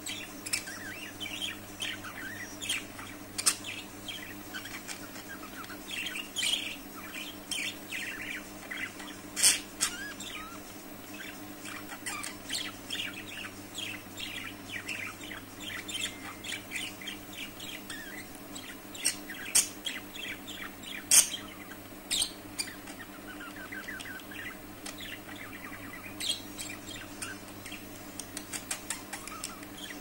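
Budgerigars chattering and warbling: a continuous stream of quick, varied chirps, broken by a few sharper, louder squeaks, over a faint steady hum.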